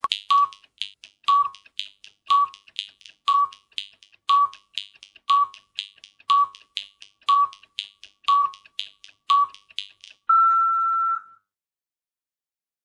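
Film-leader countdown sound effect: steady clicking about twice a second with a short beep once every second, ten beeps in all. About ten seconds in it ends in one longer, slightly higher beep lasting about a second.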